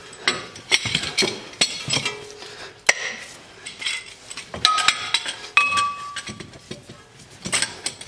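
Metal clinks and knocks of a steel C-clamp being fitted against a disc brake caliper and its screw handle worked. One knock a little past halfway leaves a short metallic ring.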